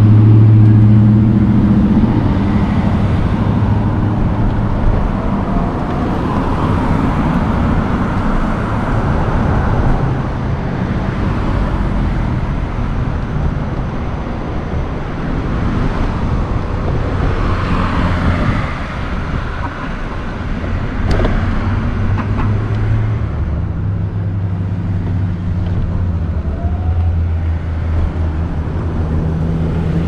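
Road traffic noise: a vehicle engine idling near the start and again near the end, with cars passing between.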